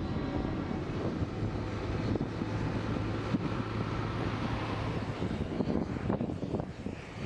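Steady flight deck noise of aircraft engines running, with wind on the microphone.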